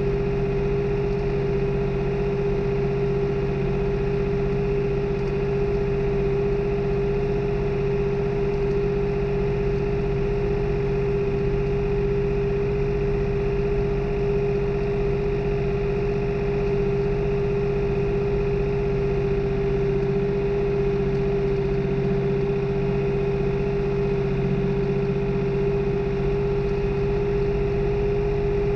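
New Holland tractor's diesel engine running at a steady speed, a constant hum with a steady whine above it and no change in revs.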